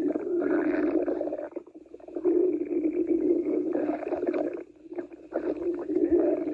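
Hungry stomach growling: three long, low rumbles with two short pauses between them, about two seconds in and about five seconds in.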